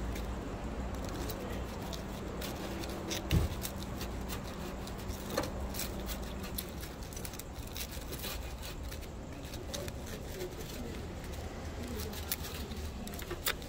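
Background ambience: a steady low hum under scattered light clicks and taps, with one louder thump about three seconds in.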